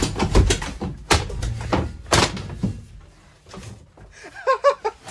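Heavy thuds and clanks of a school bus seat's metal frame and back pan being stepped on and wrenched loose, with the loudest knocks near the start, about a second in and about two seconds in.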